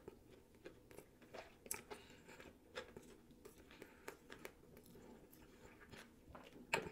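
A mouthful of sushi being chewed close to the microphone, heard as faint, irregular soft clicks and smacks of the mouth.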